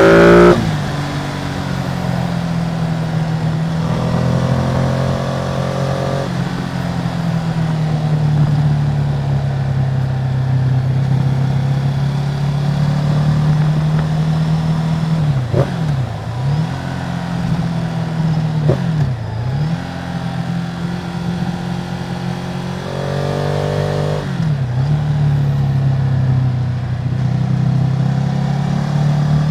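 Ducati Multistrada 950's Testastretta V-twin on its original exhaust, running at a steady pitch. Its revs briefly drop and come back three times, about 15, 18 and 24 seconds in.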